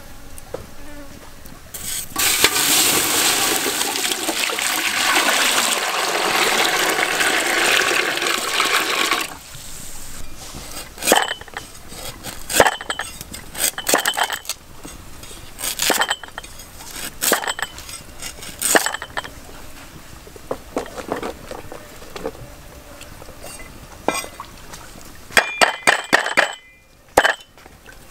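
Water poured into a large aluminium pot for about seven seconds, then a cleaver chopping garlic and lemongrass on a wooden stump block in sharp, irregular chops, with a quick flurry of them near the end.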